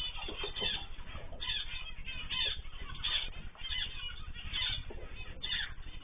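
Aviary birds, cockatiels and small finches, chirping and calling, many short calls a second, over a low steady hum.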